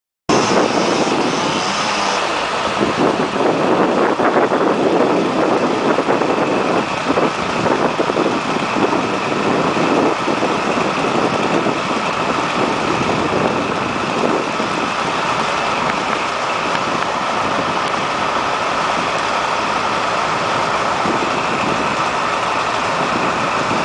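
Large engine of heavy equipment idling steadily.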